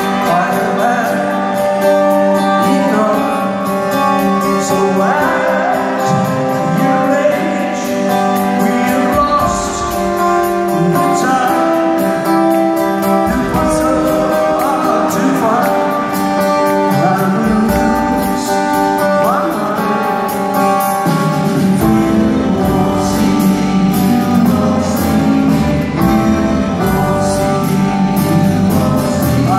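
A live band song: a male lead voice singing over strummed acoustic guitar, with the band behind, and bass notes joining about nine seconds in. It is recorded from the arena audience.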